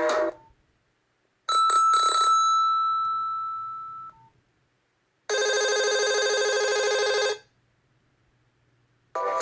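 Nokia 6301 mobile phone playing its built-in alert tones one after another, with short silences between them. A brief chime comes first. Then a few quick beeps end in a long single beep that fades out over about two and a half seconds. Then a buzzy steady tone lasts about two seconds, and a new melodic tone begins near the end.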